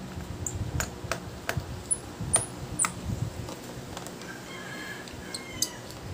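Plastic bottom cover of a Lenovo IdeaPad laptop clicking and snapping as a pry tool works along its seams and the cover's clips let go: a run of sharp clicks in the first three seconds, loudest about two and a half seconds in, and a few more near the end.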